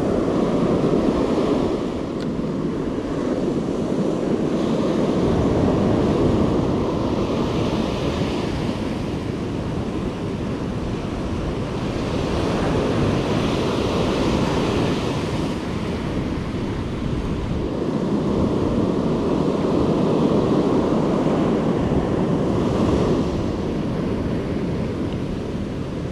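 Ocean surf breaking and washing up a sandy beach, a steady rush that swells and eases every several seconds, with wind buffeting the microphone.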